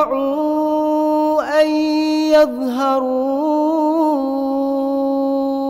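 Male voice reciting the Quran in melodic tajweed chant, ornamenting a phrase and then holding one long steady note on a drawn-out vowel.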